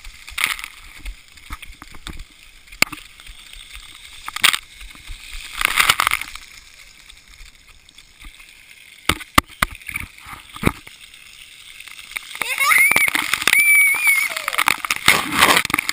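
Water from splash-pad sprayers splashing onto a GoPro, with sharp knocks against the camera and surges of spray. A child's high voice calls out near the end.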